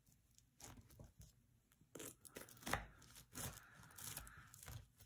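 Metal pie server cutting through a flaky baked pie crust: faint, uneven crackling and crunching of the crust, with one louder crunch a little past halfway.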